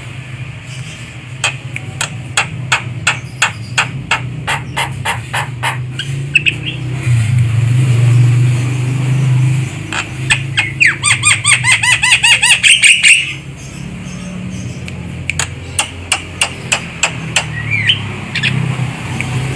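Javan myna calling: runs of sharp clicking notes, and about ten seconds in a burst of rapid, repeated chattering notes, over a steady low hum.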